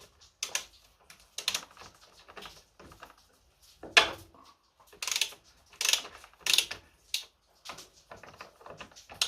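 Hand tools and metal brake parts being handled: irregular clicks, clinks and short scrapes, the sharpest knock about four seconds in.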